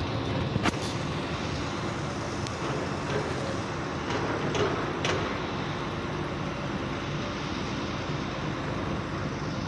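Demolition excavator's diesel engine running steadily, with a few sharp knocks of the attachment working the steel and rubble, about a second in and again around four to five seconds in.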